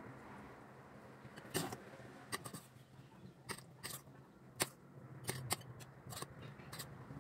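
Utensils clicking and tapping against dishes, about a dozen sharp, irregular taps over a faint low hum.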